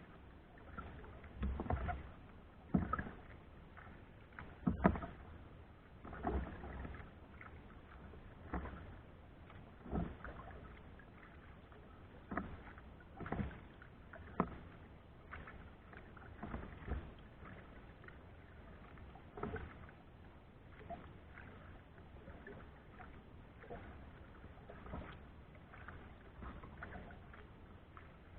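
Kayak paddling: paddle strokes splashing in the water every second or two, with a sharper knock about five seconds in. Heard through an action camera mounted on the kayak.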